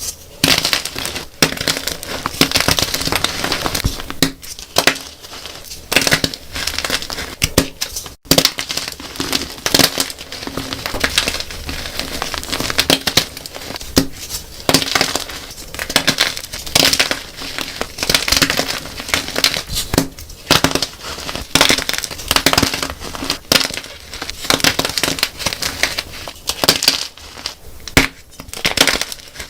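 Blocks of dyed gym chalk being crushed: a dense, irregular run of crunchy, crumbling crackles, with a brief break about eight seconds in.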